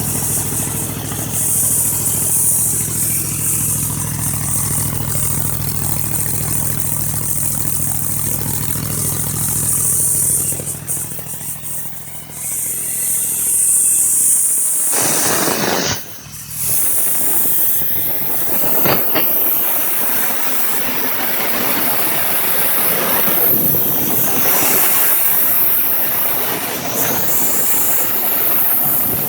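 A 302 V8 engine idles steadily with a hiss above it. About halfway through its low note cuts off, and a loud rushing noise with a few sharp clicks follows.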